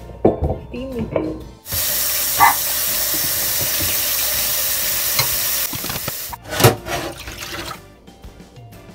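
Cold tap water running hard into a stainless steel bowl of blanched beef short ribs as they are rinsed. The water comes on about two seconds in, runs steadily, and is shut off about four seconds later, followed by a short knock.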